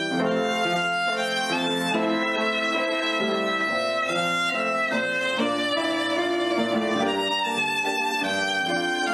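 Background music led by a violin, playing held, flowing notes.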